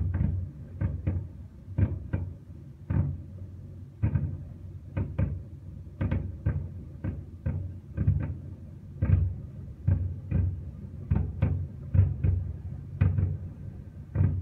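Fireworks going off in a rapid, irregular barrage of bangs and deep booms, about two a second, without a break.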